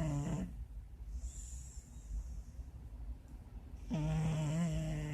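Shar-Pei dog snoring in sleep: a low, droning snore trails off just after the start, a softer airy breath follows, and the next snore begins about four seconds in.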